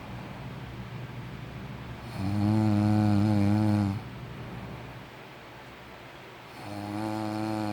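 A sleeping person snoring: two long, buzzing snores at a steady low pitch, about four and a half seconds apart, each lasting well over a second, with quieter breathing between them.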